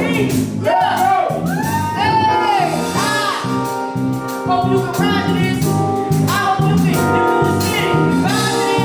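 Live band playing a slow groove on drums, bass and keyboard, with held keyboard chords and a steady beat, while a voice sings long, bending melodic lines over it.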